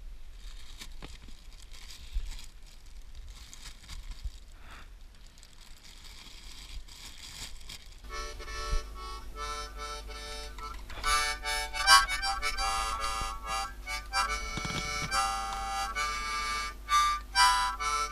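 Light clicks and knocks of plastic containers and metal cookware being handled. About eight seconds in, instrumental background music starts and carries on.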